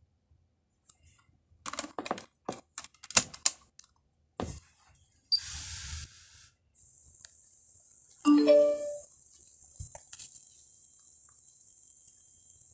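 Several sharp plastic clicks as the detachable faceplate of a Pioneer DEH-3UB car stereo is pressed back onto the head unit, followed by a short burst of noise as the unit comes on. About eight seconds in, a brief electronic chime of a few tones plays through the speakers, over a steady high hiss.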